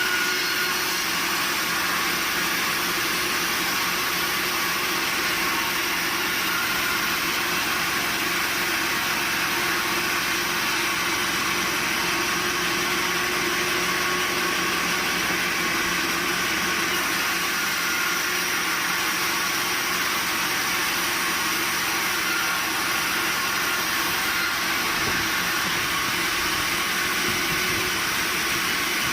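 Sawmill machinery running steadily, a constant mechanical hum with a hissing edge and no change in pitch or load.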